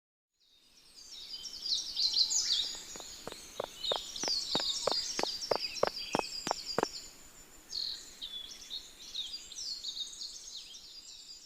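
Several birds singing and chirping together in quick, high notes, with a run of about a dozen sharp taps, roughly three a second, from about three to seven seconds in.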